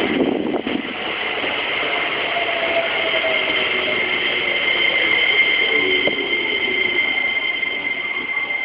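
Keikyu 2100-series electric train running past the platform, its motor tones slowly falling in pitch as it slows. A steady high squeal runs over them, and the sound eases off near the end.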